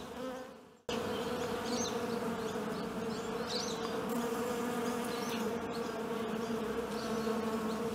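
Honeybees buzzing in a steady hum, starting about a second in.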